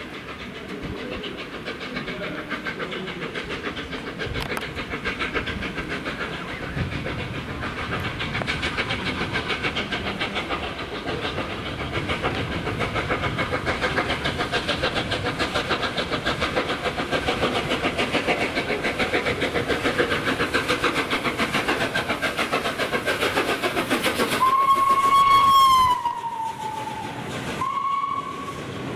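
LNER A3 steam locomotive 60103 Flying Scotsman running through under steam, its regular exhaust beats growing louder as it nears and passes. Near the end its whistle sounds twice: a long blast that slides down in pitch, then a short one.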